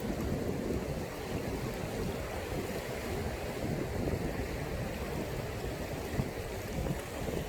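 Sea waves washing on the shore, a steady rushing surf noise.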